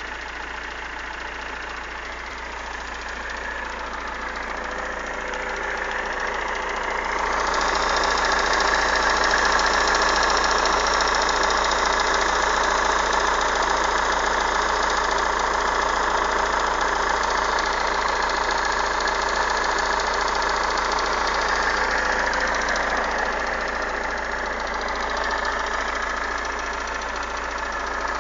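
Engine running steadily, getting louder about seven seconds in and holding there, easing off a little near the end. It is recorded for a noise that the owner finds suspicious.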